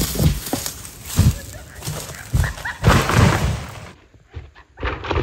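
Large tractor tire thudding and bouncing as it rolls down a grassy slope: a run of uneven heavy thumps, with wind buffeting the microphone until about four seconds in.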